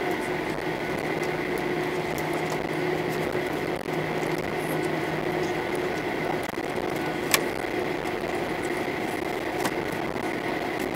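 Steady cabin noise inside a Boeing 737-800 on the ground before takeoff: the rush of the air conditioning with a steady whine and hum from the aircraft's systems, a low part of the hum fading out about halfway through. A single sharp click about seven seconds in.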